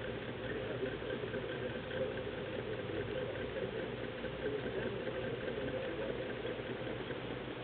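Homemade no-bearing hot-air Stirling engine, heated by a Sterno can, running at a steady pace.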